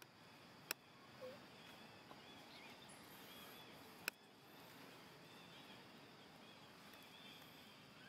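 Near-silent outdoor ambience with faint high chirping throughout, broken by two sharp clicks, one just under a second in and one about four seconds in.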